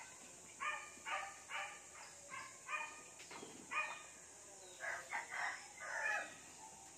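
Chickens calling in runs of short, repeated calls, several a second, with a brief pause midway.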